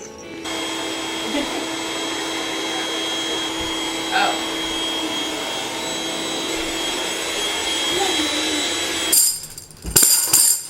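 A household electric motor appliance runs with a steady whir, then cuts off about nine seconds in; sharp rattling knocks follow near the end.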